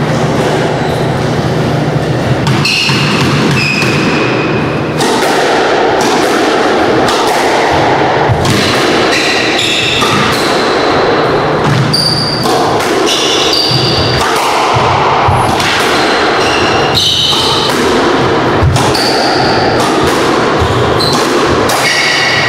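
Squash rally on an indoor court: the ball repeatedly smacking off racquets and walls in sharp thuds, with short high squeaks of court shoes on the wooden floor.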